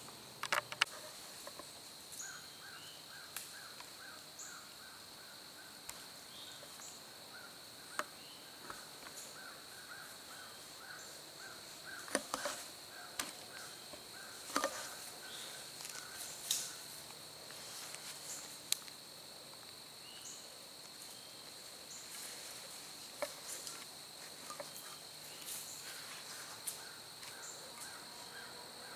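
Woodland ambience: a steady high insect drone, like crickets, under scattered bird chirps and runs of quick repeated chirps. Occasional sharp snaps and rustles stand out, the loudest clustered around the middle.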